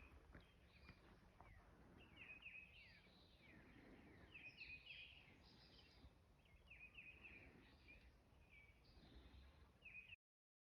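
Faint songbirds chirping outdoors: many short, high, falling chirps repeated over a low background hiss, ending abruptly just before the end.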